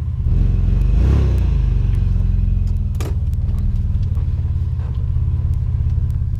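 Toyota 4Runner engine running at low revs, a steady low rumble as the truck creeps along, with a single sharp click about three seconds in.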